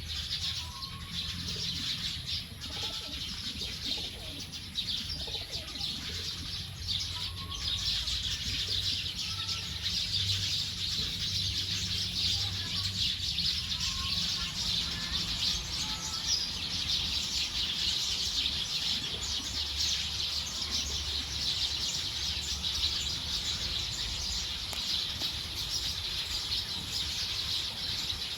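A large flock of small birds chirping all at once in a dense, unbroken chatter as they gather to roost for the night, with a low steady rumble underneath.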